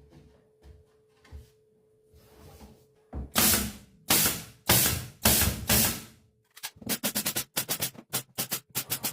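Pneumatic nail gun firing nails into plywood: four loud half-second shots, each with a rush of air, then a quick run of short sharp shots about four a second.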